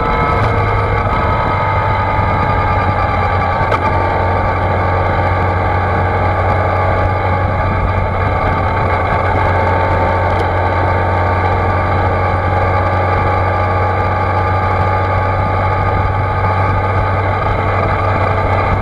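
2006 Yamaha FJR1300's inline-four engine running at a steady cruise. It sounds muffled because it is recorded through a closed waterproof dive case mounted on the bike.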